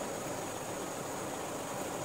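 Two 4-inch 12V DC cooling fans running steadily in a box: an even rush of air with a thin high tone on top.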